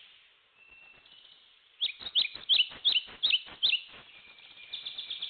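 A wild songbird singing: after a quiet start, about six loud, sharp down-slurred whistled notes in quick succession, then a fast trill near the end.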